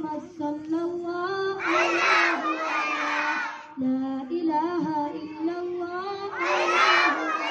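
Boy singing a devotional nasheed into a microphone in long, held, wavering notes, the voice swelling louder twice.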